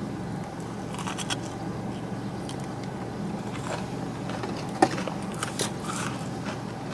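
A person eating between remarks: faint chewing with small scrapes and rustles of food and packaging, over a steady low hum, and one short knock about five seconds in.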